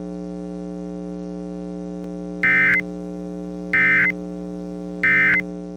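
Steady electrical hum of weather-radio dead air, broken by three short bursts of EAS digital data tones about 1.3 s apart: the end-of-message (EOM) code that closes the alert. The hum starts to fade near the end.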